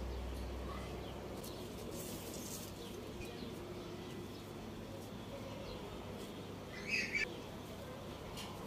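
A bird chirps twice in quick succession about seven seconds in, over a faint steady background with a few light clicks.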